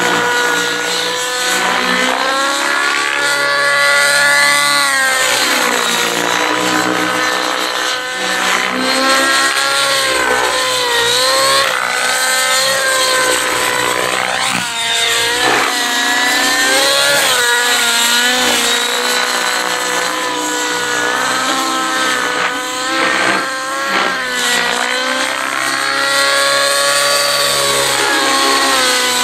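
Next-D Rave ENV 90 radio-controlled helicopter's 90-size nitro engine running in aerobatic flight, its note rising and falling continuously through the manoeuvres.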